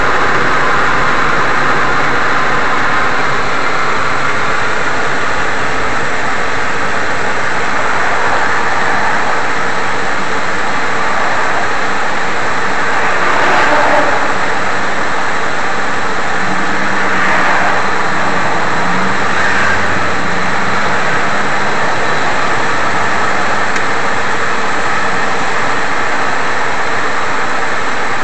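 Freight train of autorack cars rolling steadily past, a continuous clatter and rumble of steel wheels on the rail, with a couple of brief louder swells partway through.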